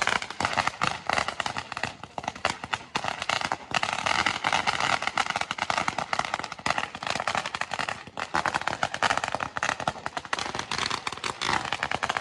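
Firecrackers going off in a rapid, continuous run of sharp bangs.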